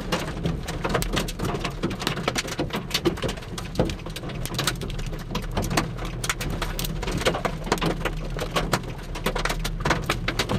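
Rain falling hard, with many drops striking close by in irregular ticks, over a steady low rumble.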